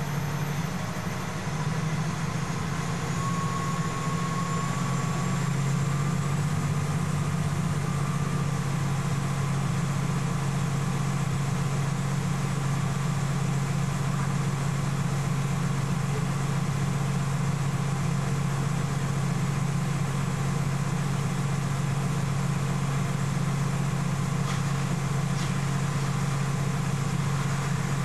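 Fire engine's engine running steadily, heard from inside the cab as a constant low drone.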